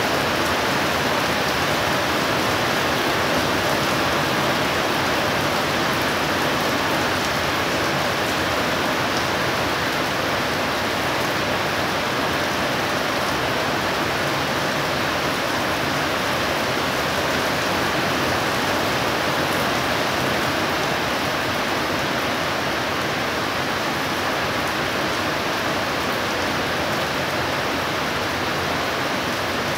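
Heavy thunderstorm downpour falling steadily, a constant even hiss of rain with no thunder claps.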